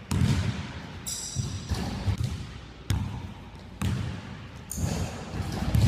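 Basketball bouncing on a hardwood gym floor as a player dribbles, about eight irregularly spaced thuds that ring briefly in the big hall, with a few short high squeaks between them.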